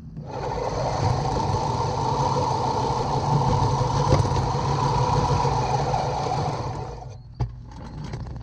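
Sun Joe MJ502M manual reel mower pushed across pavement, its freewheeling reel spinning and wheels rolling in a steady run that dies away about seven seconds in, followed by a single sharp click.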